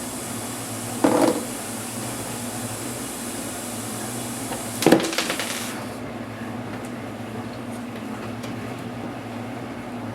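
Two short clatters of hard plastic laptop parts being handled and set down while an HP DV4 laptop is taken apart, about a second in and again near five seconds, over a steady low hum.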